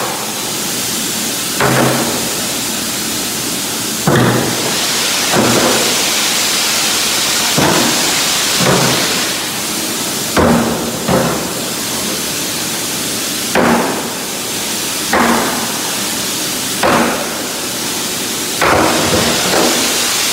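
Sledgehammer blows, about a dozen, irregularly spaced a second or two apart, some with a short metallic ring, over a steady background hiss.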